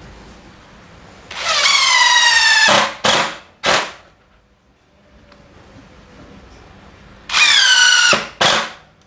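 DeWalt DCF787 cordless impact driver driving two blunt-tipped white screws into softwood. Each time a whine falls in pitch as the screw bites, then one or two short bursts follow as the screw is run home.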